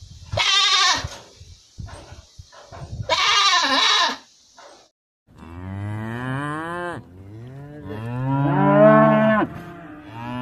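A goat bleating twice, in short wavering calls, then a cow mooing: two long moos, the second louder.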